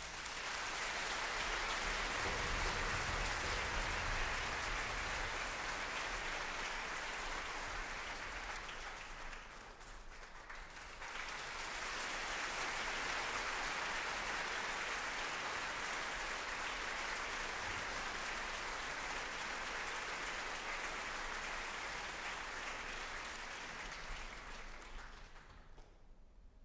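Theatre audience applauding. The applause sags briefly about ten seconds in, picks up again, then fades out near the end.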